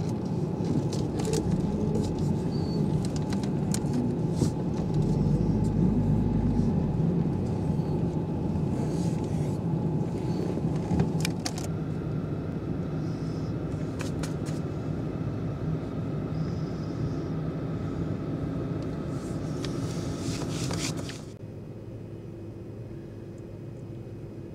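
Car engine and tyre rumble heard from inside the cabin at low speed in slow traffic, with scattered sharp clicks. Near the end the sound suddenly drops to a quieter steady hum.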